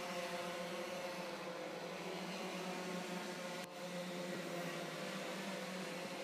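Several go-kart engines running at low speed on the warm-up laps before a rolling start, a steady hum that dips briefly about two-thirds of the way in.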